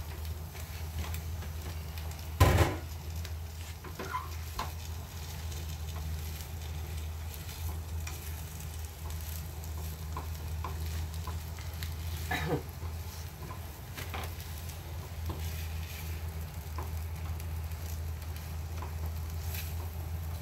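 Food sizzling in a frying pan as it is stirred, with small utensil clicks, a sharp knock against the pan about two and a half seconds in and another around twelve seconds in. A steady low hum runs underneath.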